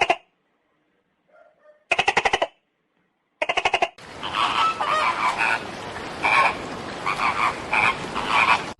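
Croaking animal calls: three short rattling croaks about a second and a half apart, then a run of repeated croaks over a steady hiss from about four seconds in.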